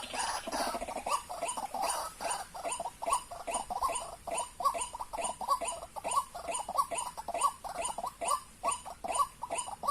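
White-breasted waterhen (ruak-ruak) calling: a fast, steady series of short repeated notes, about three or four a second.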